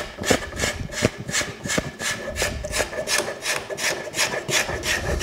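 Steel card scraper drawn over the bowl of a carved wooden spoon in quick, short, even strokes, about five a second, smoothing the wood.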